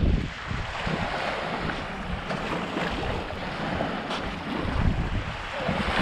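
Small waves washing on a sandy shore, with gusts of wind buffeting the microphone, the strongest at the very start and another about five seconds in.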